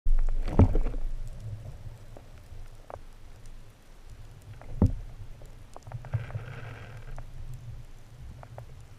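Underwater sound through a camera housing: a low muffled rumble of water moving past, with a loud knock about half a second in, a second knock near the middle, a brief hiss about six seconds in, and scattered small clicks.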